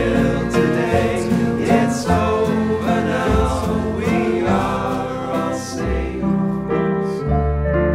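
Background music: a song with singing over instruments.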